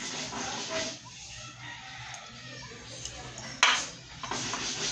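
A rooster crowing and clucking, with one sharp knock about three and a half seconds in.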